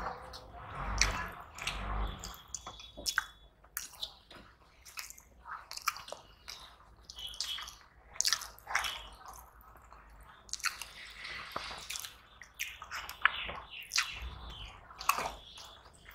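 Two people eating rice and curry with their hands: wet chewing and lip-smacking, with irregular clicks and squelches.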